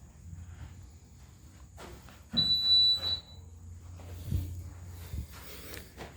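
A fire alarm sounder gives one high-pitched electronic beep of under a second, then a short blip, during alarm testing. Low rumble and a few scattered knocks run underneath.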